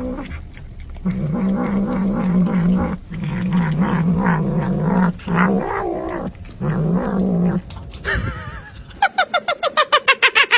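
Cat growling over raw fish while eating it: a low, wavering growl in several stretches of one to two seconds with short breaks, the food-guarding growl of a cat at its meal. Near the end, a second cat gives a rapid run of short, high calls.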